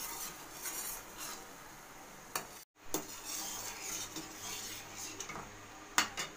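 Sugar syrup bubbling at the boil in a metal wok, stirred with a steel ladle that scrapes and clinks against the pan, with a couple of sharp clinks near the end. The syrup is not yet thick enough and is still being boiled down.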